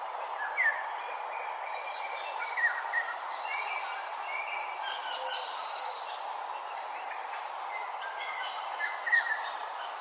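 Several birds chirping and singing in an early-morning chorus, many short calls overlapping, over a steady background hiss of outdoor ambience. A few calls stand out louder, about half a second in, around three seconds in and near the end.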